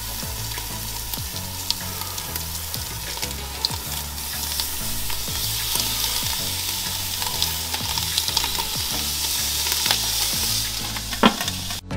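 Raw bacon rashers sizzling on the hot cast-iron grates of a Weber Q1200 gas grill. The sizzle grows louder about halfway through as more rashers are laid down, with a few light clicks as they are placed.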